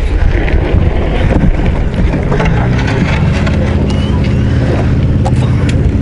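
Wind buffeting the camera microphone as a heavy low rumble. A steady low hum comes in about two seconds in, and a few sharp knocks sound near the end.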